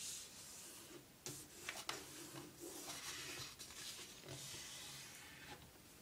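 A sheet of plain 80 g printer paper being folded along its diagonal and creased by hand: faint rustling and rubbing as fingers press and run along the fold, with a couple of sharp crackles a little over a second in.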